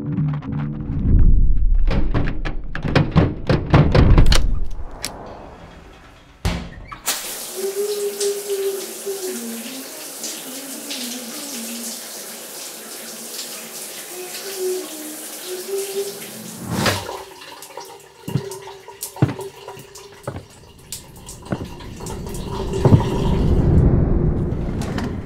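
Shower running: an even hiss of falling water for about ten seconds in the middle. Before it comes a series of loud, deep thumps and clicks. After it, a few knocks and a low rumble that swells up near the end.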